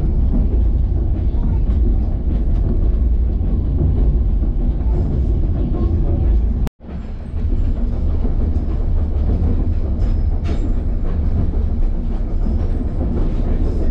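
White Pass & Yukon Route passenger coach rolling along the narrow-gauge track: a steady, heavy rumble with a noisy wash above it. The sound breaks off for an instant about seven seconds in, then the same rolling rumble continues, heard from inside the coach.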